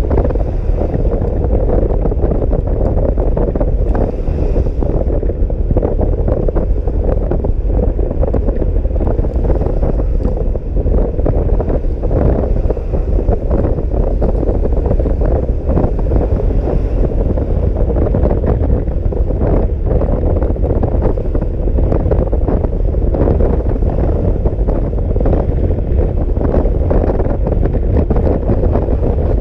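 Wind buffeting the microphone of a scooter rider at speed in heavy rain: a loud, steady, low rumbling noise that drowns out everything else.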